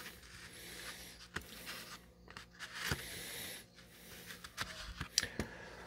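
A knife slicing through a cherry tomato on a paper plate: faint soft scraping with a few small clicks of the blade.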